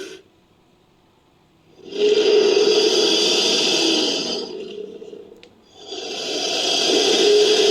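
Two long roars of a fictional Spinosaurus–Sarcosuchus hybrid, a creature sound effect mixed from Spinosaurus and Sarcosuchus roar clips. The first starts about two seconds in and fades out; the second swells up near the end and is still going.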